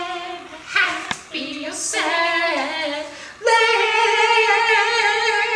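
A voice singing unaccompanied in long held notes with short breaks, then a louder, high note held from about three and a half seconds in, wavering with vibrato.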